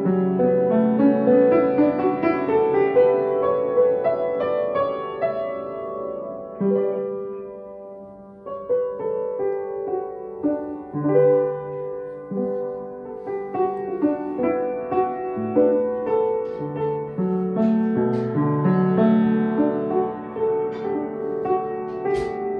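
Solo piano playing a melodic piece, chords and notes ringing on; the playing thins to a soft moment about a third of the way through, then picks up again. A brief sharp click sounds near the end.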